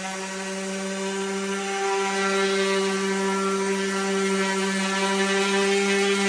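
Electric power sander running with a steady hum, one strong tone with higher overtones and a hiss above it.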